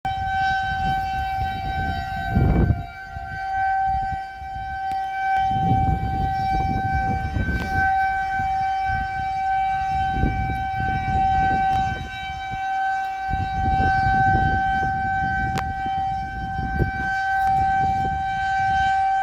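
Outdoor civil defense siren sounding a tornado warning, holding one steady tone. Low rumbling noise comes and goes under it, with a loud thump about two and a half seconds in.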